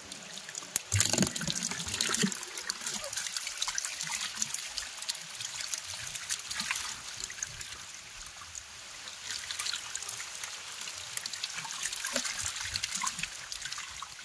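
Water splashing and trickling as hands scoop through a shallow crate crowded with live fish fingerlings, the small fish flapping and spattering. It is a steady run of small splashes, loudest about a second in.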